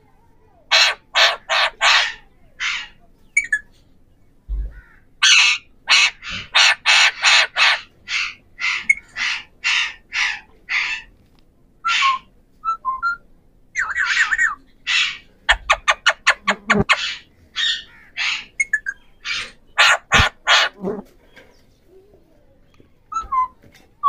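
Alexandrine parakeets (Pahari parrots) giving loud, harsh screeching calls in runs of short squawks separated by brief pauses. Around the middle there is a rapid burst of chattering calls.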